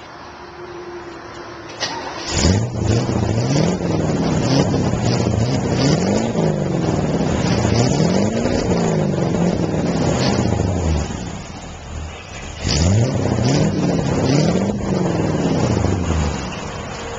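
1965 Chevy C-10 pickup engine through its dual exhaust, revved hard again and again in rising and falling surges. It drops back briefly about eleven seconds in, revs again, and eases off near the end.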